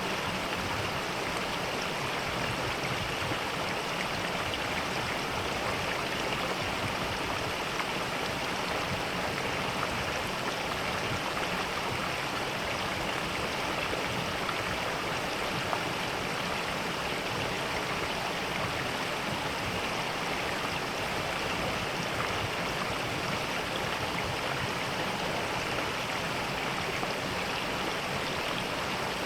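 Mountain valley stream: water rushing and splashing over rocks in a steady, unbroken flow.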